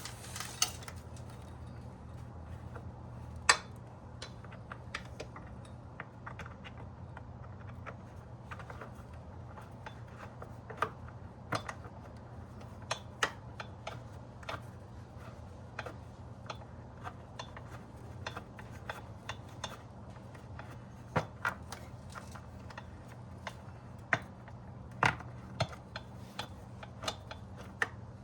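Scattered small clicks and taps of a hand tool and screw against metal and plastic as a screw is worked into an awkward spot behind a motorcycle's plastic panel, over a steady low hum.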